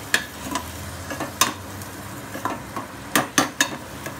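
A spoon scraping and clinking against the side of an aluminium pressure cooker as sprouts are stirred, with several sharp clinks, most of them bunched in the second half, over a steady sizzle from the pan.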